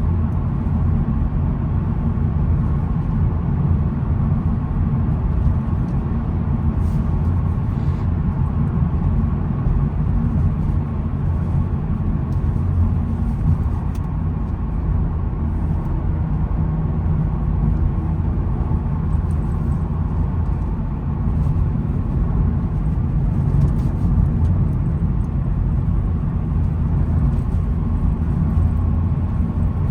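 A 2022 SEAT Ibiza FR hatchback being driven, heard from inside the cabin: a steady engine hum and road rumble.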